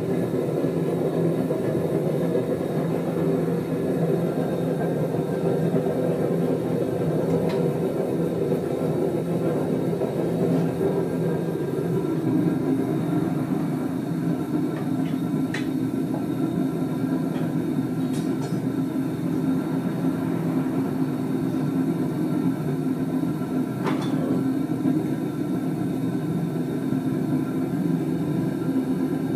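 Burner of a gas-bottle foundry furnace running steadily, a continuous rumble with a low hum in it; its tone shifts a little about twelve seconds in. A few faint clicks.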